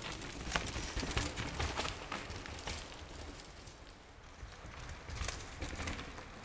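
Mountain bike riding over a dirt forest trail: tyres rumbling on the ground and the bike clattering in irregular knocks over bumps and roots. It is loudest as the rider passes close in the first two seconds, and again about five seconds in.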